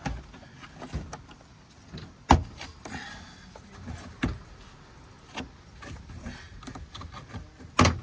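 Plastic interior trim panel being worked loose by hand, giving irregular sharp knocks and clicks, the loudest about two seconds in and near the end.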